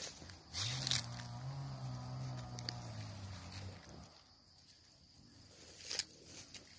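Footsteps through grass and dry weeds, with one long low call or hum of about three seconds starting half a second in. A sharp rustle comes near the end.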